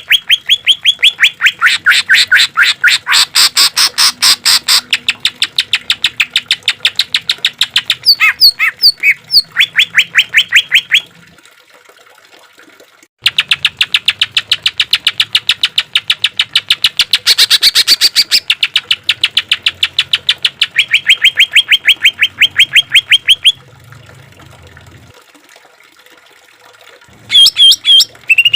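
Green leafbird (cucak ijo) singing long runs of fast repeated rising notes, about ten a second, in two bursts split by a short pause. After a few quiet seconds, varied whistled notes start near the end.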